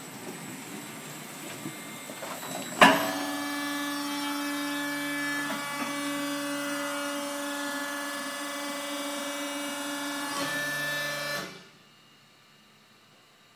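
Joos DLP100/VB hydraulic through-feed press starting with a sharp clack about three seconds in, then running with a steady electric motor hum and whine for about eight seconds before cutting off abruptly near the end.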